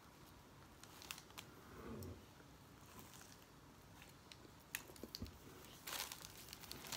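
Faint crinkling of a paper bakery wrapper and crunching as a flaky almond croissant is picked apart and bitten, with a few short clicks and rustles.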